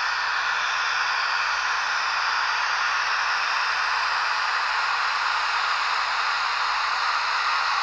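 H0 scale model electric locomotives running along the track close by: a steady, even whirring hiss of the motor and the wheels on the rails.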